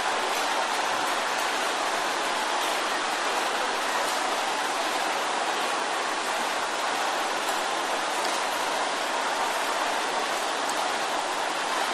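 A large congregation praying aloud all at once, their many voices blending into a steady, even wash of noise with no single voice standing out.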